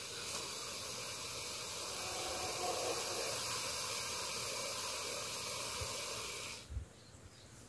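Boa constrictor giving one long, open-mouthed hiss that cuts off suddenly about six and a half seconds in: the defensive hiss of an irritated snake.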